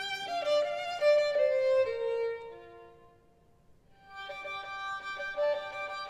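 Background music: a slow melody of held notes that fades to near silence about three seconds in, then starts again about four seconds in.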